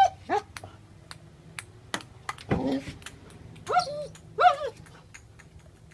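Ping-pong ball clicking off the table and paddle in quick, irregular taps, a few a second. Short rising vocal calls break in at the start, about two and a half seconds in, and twice around four seconds.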